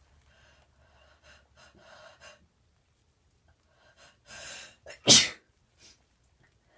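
A woman's allergic sneeze: a few short catching breaths, a longer gasping inhale, then one loud sneeze about five seconds in. She puts the sneezing down to an allergy to her new bubble bath.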